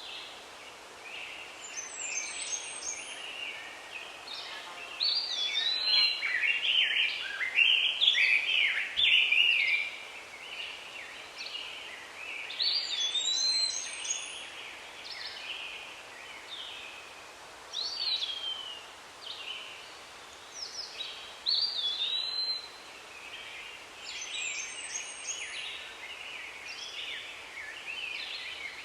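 Songbirds singing and calling. One bird repeats a short whistled note that rises and then falls every few seconds, over busier chirping and chatter from others.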